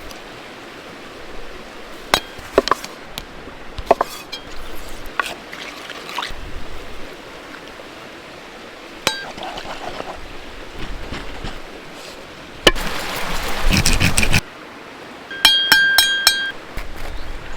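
Cookware and utensils clinking and knocking during food preparation. A ringing clink comes about nine seconds in, a short noisy rush follows about thirteen seconds in, and a quick run of ringing clinks comes near the end.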